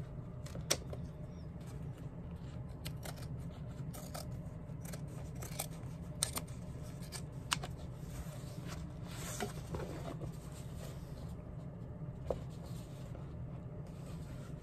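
Hand shears snipping irregularly, with short sharp cuts every second or so, as excess material is trimmed away along the edge of a shoe. A steady low hum runs underneath.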